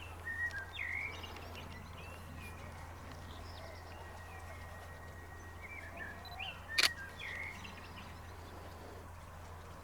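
Small birds chirping and whistling over a steady low hum, with one sharp click about seven seconds in.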